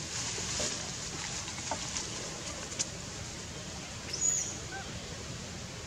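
Steady outdoor background hiss with a few faint light clicks, and one brief high squeak about four seconds in.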